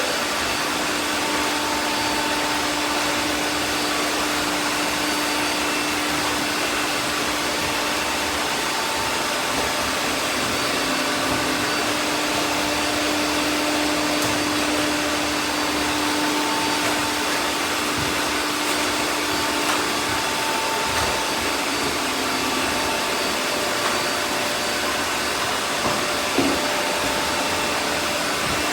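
Several robot vacuums running at once: a steady whirring drone with a constant hum, broken by a few faint knocks.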